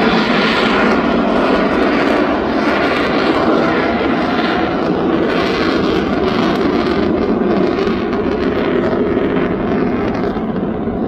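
A Dassault Rafale fighter jet's twin turbofan engines roaring in flight: a loud, steady noise whose higher part fades near the end.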